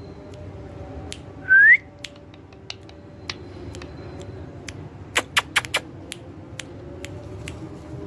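Indian ringneck parrot giving one short rising whistle about one and a half seconds in. A quick run of about five sharp clicks follows a few seconds later.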